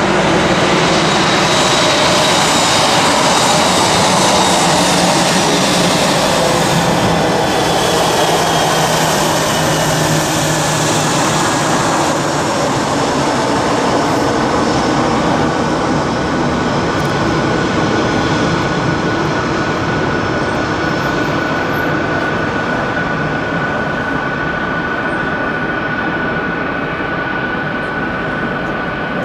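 Boeing C-17 Globemaster III's four Pratt & Whitney F117 turbofan engines running at taxi power as the jet taxis, a steady jet noise with a high whine. The whine drifts down in pitch over the first several seconds, then holds steady, and the sound eases slightly toward the end.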